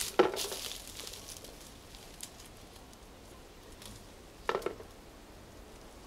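Hand-picking cornelian cherries from a tree into a small container: leaves and twigs rustling, with two short louder rustles, one just after the start and one about four and a half seconds in, and scattered faint ticks between.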